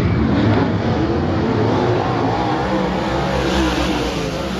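Several dirt-track race car engines running loud as the cars circle the track, their pitches rising and falling, the overall sound slowly fading toward the end.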